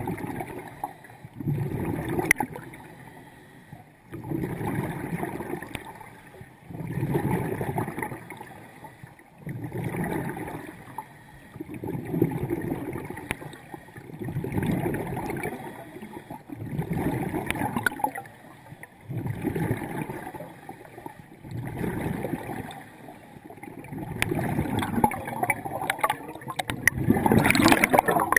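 A scuba diver breathing through a regulator underwater: regular bursts of bubbling and hiss, about one every two and a half seconds, with a louder burst near the end.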